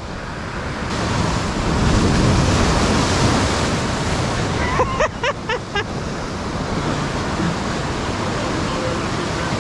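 Sea surf surging and breaking on rocks, swelling over the first couple of seconds and then holding as a steady wash. A few short high calls cut in about halfway through.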